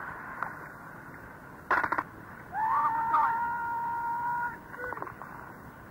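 Crackly two-way radio transmission: a steady hiss, a brief garbled voice fragment about two seconds in, then a steady two-note tone held for about two seconds.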